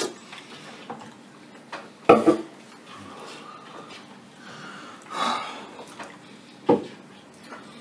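Metal spoons clinking and scraping against ceramic bowls while eating beans, with a few short sharp knocks: one about two seconds in and another late on.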